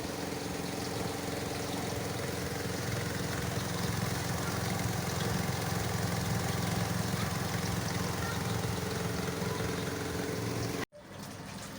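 Ramtoms 10 kg twin-tub washing machine's spin drum running while it spins and rinses a load: a steady motor hum that cuts off suddenly near the end.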